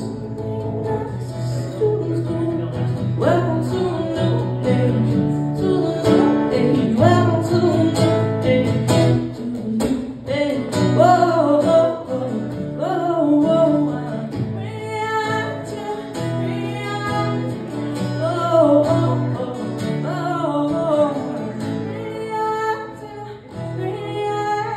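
A woman singing to her own strummed acoustic guitar, the song closing near the end.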